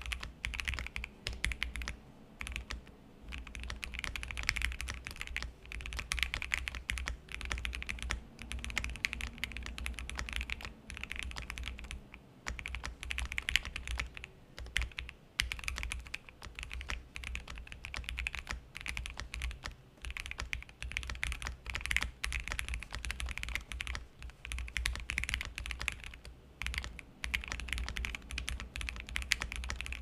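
Typing on an OwLab Voice65 custom mechanical keyboard with lubed and filmed Alpaca linear switches, a polycarbonate plate and PBT Cherry-profile keycaps, with a mousepad under the board. It is a continuous run of keystrokes broken by a few short pauses.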